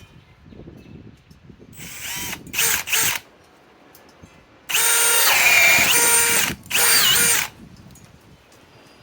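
Milwaukee M18 Fuel Gen 4 cordless hammer drill spinning a 1-1/4 inch speed bore spade bit into wood. A few short trigger bursts come first, then a run of about two seconds in which the motor's whine sags and recovers as the bit bites, then one more short burst.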